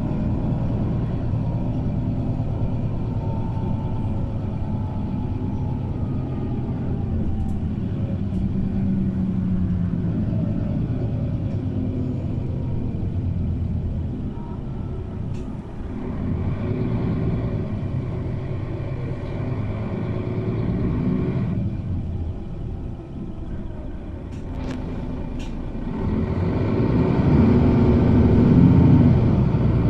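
City bus heard from inside the passenger cabin while driving: a steady engine and road rumble that eases off twice, then rises again about four-fifths of the way in as the engine pulls harder.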